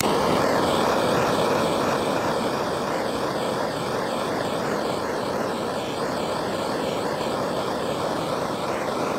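Heat gun blowing steadily, its fan running with a faint wavering whine, switched on suddenly at the start; it is heating solder-seal butt connectors to shrink the tubing and melt the solder ring.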